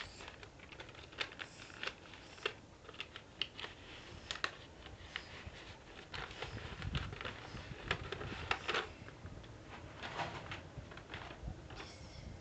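White paper being handled close to the microphone: irregular crackling and rustling clicks, with a few dull bumps of handling about halfway through.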